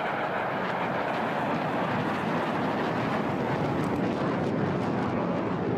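HAL Tejas fighter's single General Electric F404 turbofan in flight, a steady rushing jet noise as the aircraft manoeuvres.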